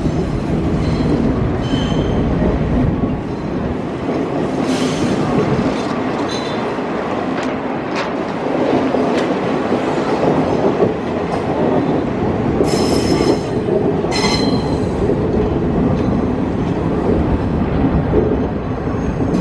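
Argo Sindoro executive-class passenger coaches rolling slowly past on the rails, a steady rumble and rattle of wheels on track. Brief high wheel squeals come a few times.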